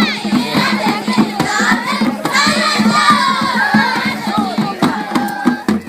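A crowd of schoolchildren singing and shouting together with handclapping, celebrating with dance.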